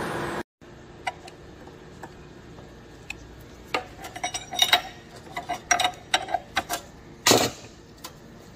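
Irregular small metallic clicks and taps as a thin screwdriver and gloved fingers work a thickness planer's ribbed drive belt onto its pulleys, with one sharper knock near the end.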